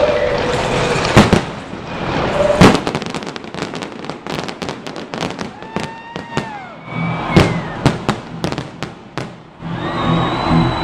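Aerial fireworks bursting overhead: loud sharp bangs about one and two and a half seconds in, then a dense run of rapid cracks and crackling, with a few whistling tones arching up and down around the middle. Music with a steady beat comes in near the end.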